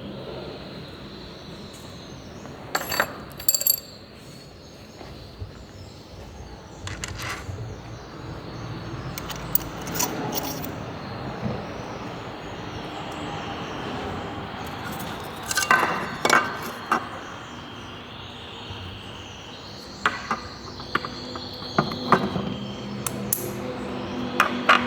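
Tools and small metal engine parts clinking and clicking as they are handled, in scattered clusters of sharp knocks with quiet stretches between.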